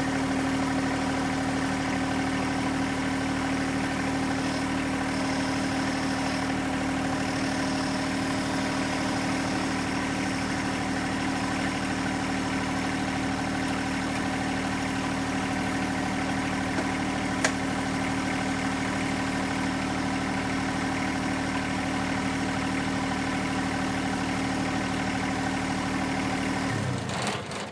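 John Deere 1025R compact tractor's three-cylinder diesel idling steadily, then shut off near the end, running down and stopping.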